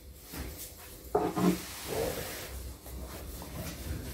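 Soft rubbing of a thin wooden rolling pin (oklava) as it rolls out sheets of börek dough by hand, with a few light ticks.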